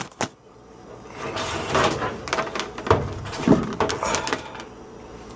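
Plastic water-supply tubing being pulled through a hole, sliding and rubbing against the edges in a series of short drags, after two sharp clicks at the start.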